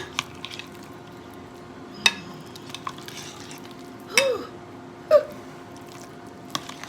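A utensil stirring and mashing potatoes with cream cheese in a mixing bowl: scattered knocks and clicks against the bowl, the loudest two about four and five seconds in.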